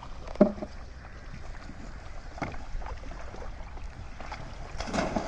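Steady wind rumble on the microphone over open water, broken by a few sharp knocks from the wooden boat and the bamboo polo fish trap being handled. The loudest knock comes about half a second in, and a brief rush of noise follows near the end.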